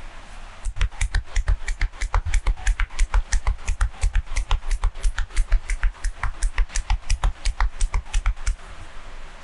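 Rapid percussive hand massage: the masseur's hands strike the body in quick succession, about five strikes a second, each a dull thud with a sharp click. The strikes start about a second in and stop near the end.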